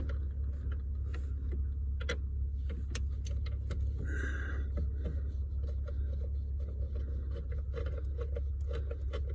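Small, irregular clicks and taps of a T20 Torx driver working a screw out of a plastic steering column shroud, with a brief scrape about four seconds in, over a steady low hum.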